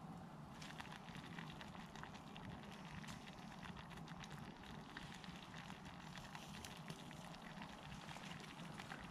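Wood campfire crackling, with irregular small pops and snaps over a faint steady low hum.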